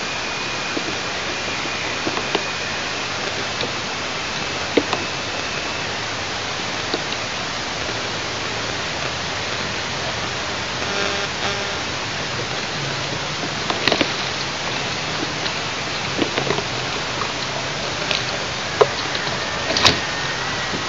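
Steady even hiss, with scattered small clicks and crackles of sticks in a large eagle nest being handled, a few louder ones near the end.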